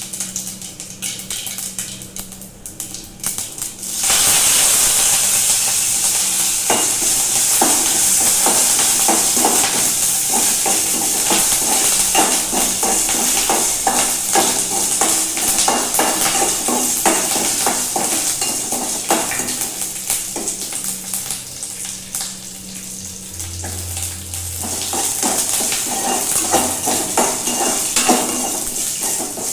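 Green chillies frying in hot oil in an aluminium kadai, with a loud sizzle that starts suddenly about four seconds in and runs on steadily. A metal ladle scrapes and clicks against the pan again and again as they are stirred.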